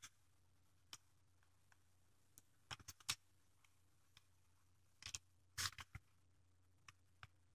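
Near silence broken by faint, scattered clicks and short scratches of a gel pen and coloured pencil being handled and stroked on paper, with a few in quick succession about three seconds in and again around five to six seconds in.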